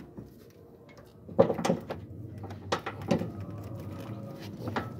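Wrench with a long steel pipe extension working on engine-mount bolts: a handful of sharp metal clanks and knocks, the loudest about a second and a half in, over a low steady hum.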